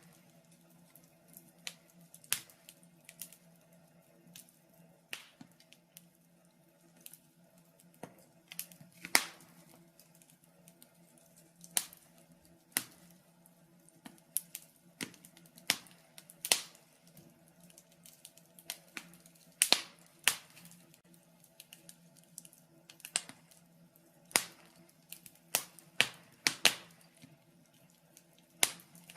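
Wood fire crackling in a fireplace: irregular sharp pops and snaps, a few much louder than the rest, over a faint steady hum.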